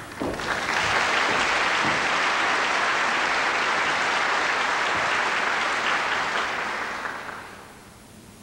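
Concert-hall audience applauding, dying away about seven seconds in.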